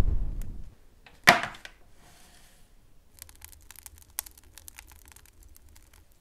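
Wood fire crackling in a brick oven, with irregular sharp snaps and pops. About a second in there is a single sudden loud noise, and a brief low rumble at the very start.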